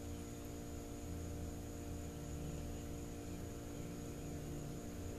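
Steady low hum with a faint thin high whine above it: room tone with no distinct event.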